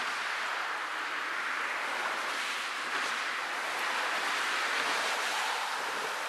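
Road traffic passing: steady tyre noise from cars and vans on the road, swelling and easing as each vehicle goes by.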